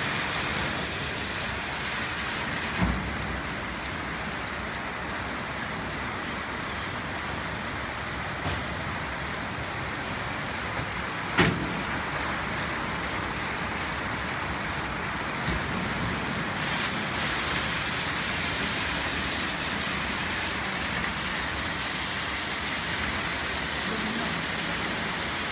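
Haitian XL-200 rollover car wash spraying water and scrubbing a car with its rotating soft brush: a steady rain-like hiss of spray and brush on the bodywork. There are two short knocks, one about 3 seconds in and a louder one about 11 seconds in.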